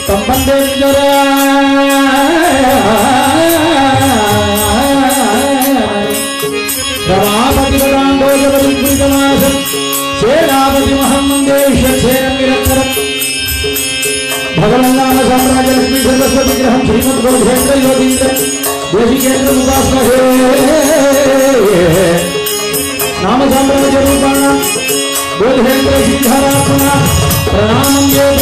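A male voice singing a Sanskrit dhyana sloka in Carnatic style, in long melodic phrases with slow glides, over a steady harmonium drone.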